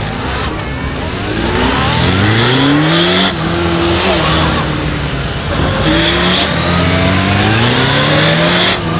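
Honda police motorcycle engine accelerating and easing off as it is ridden through a tight course of S-bends and corners. The pitch climbs in two surges, one about two seconds in and another past the middle, with a drop back between them.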